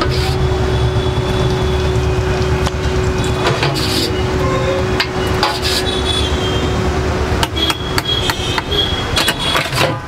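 Metal ladle knocking and scraping against a large metal pot of chole as portions are served: a string of sharp clanks, a few around the middle and many more in quick succession near the end, over a steady low street rumble.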